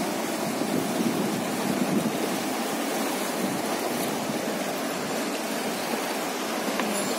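Steady rushing of a fast mountain river's current over shallow riffles, heard from a wooden raft floating on it.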